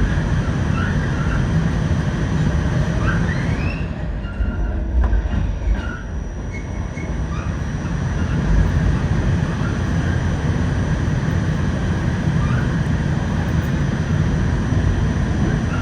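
New York City subway shuttle train running on the tracks: a heavy, steady rumble of wheels and motors, with short rising wheel squeals every so often. The squeals come mostly in the first few seconds and again later on.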